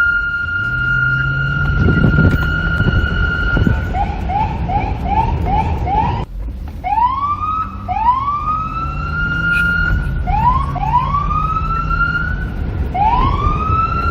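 Police car siren cycling through its patterns: a steady held tone, then a quick run of short rising chirps, then, after a brief cut about six seconds in, repeated rising sweeps that climb and hold at the top pitch. A low rumble runs underneath.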